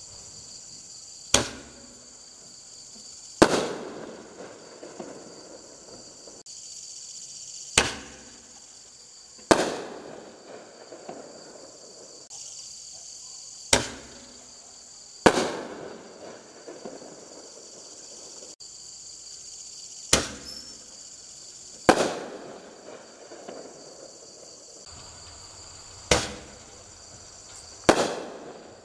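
Artillery shells of the BD6002-A kit fired one at a time from a mortar tube: five times, a sharp launch thump followed about two seconds later by the louder bang of the shell breaking overhead, each bang trailing off in an echo. Insects chirp steadily underneath.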